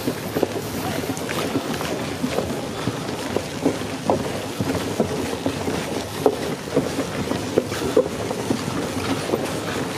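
A crowd of people walking on a floating pontoon walkway over water: many footsteps knocking irregularly over a steady background of noise.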